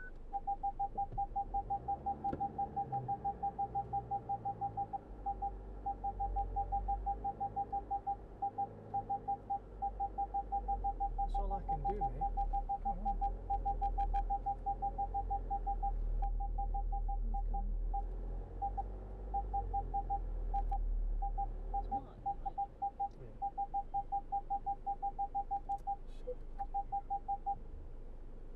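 Land Rover Freelander 2 parking sensor beeping rapidly, about nine short beeps a second in runs with brief breaks, warning of an obstacle close to the car as it creeps and stops. The engine idles low underneath, with a few faint knocks about halfway through.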